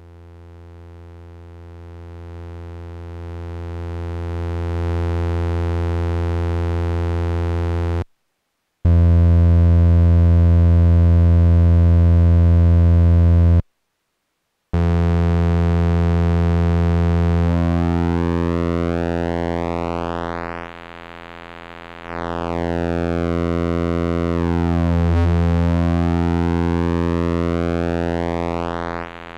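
PWM Malevolent analog synthesizer's oscillator droning on one low, steady note as its waveform shapes are switched and adjusted. It fades in at first and cuts out briefly twice. In the second half its tone keeps changing, with its overtones sweeping up and down as a shape knob is turned.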